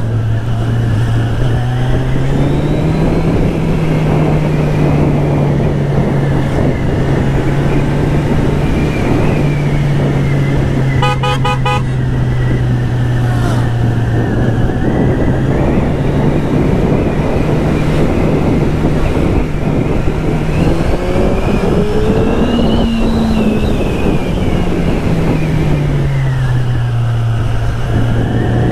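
Kawasaki Z1000SX's inline-four engine running on the move, its note rising and falling a few times with throttle and gears, over steady wind and road noise. A horn gives a quick series of short toots right at the start and again about 11 seconds in.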